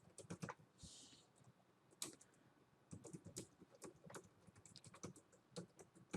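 Faint typing on a computer keyboard: irregular key clicks, with a pause of about a second near the start, then a steady run of keystrokes.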